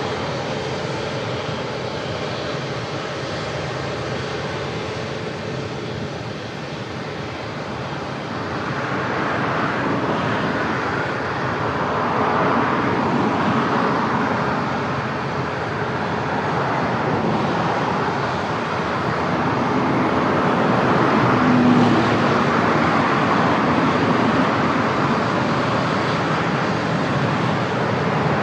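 Passenger jet engine noise: a steady rushing sound that slowly swells and eases.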